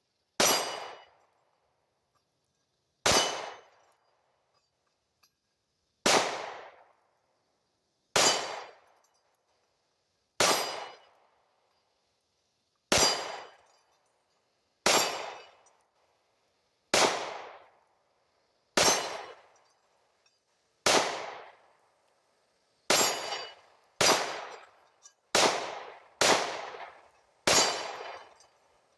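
Glock 19X 9mm pistol firing about fifteen single shots, each a sharp crack with a short echoing tail. They come every two to three seconds at first, then quicker, about one a second, near the end.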